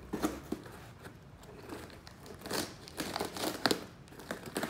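Plastic wrapping crinkling and a cardboard box being cut and torn open with a knife: irregular crackles, rustles and tearing.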